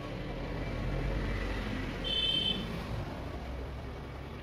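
Low rumble of a vehicle passing, swelling about a second in and fading, with a brief high-pitched beep about two seconds in.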